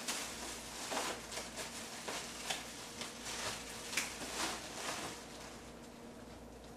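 Items being gathered up off a kitchen countertop: a run of short knocks, clatters and rustles for about five seconds, thinning out near the end.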